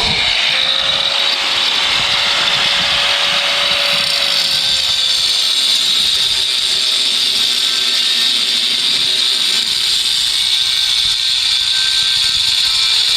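Angle grinder with a cut-off disc cutting through steel Unistrut channel, loud and steady. The motor's whine sags slightly in pitch about five seconds in.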